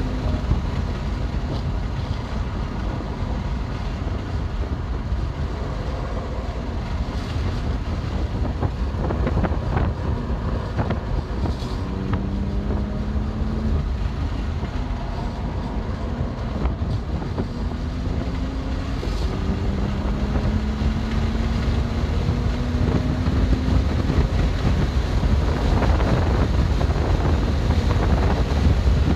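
BMW M2 Competition's twin-turbo inline-six engine under load on track. Its note climbs in pitch several times and drops back between pulls, over a constant heavy rumble of road and wind noise.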